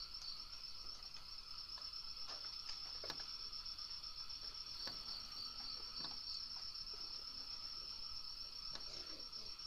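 Crickets chirping in a steady, rapid, high-pitched trill, with a few faint knocks and rustles scattered through.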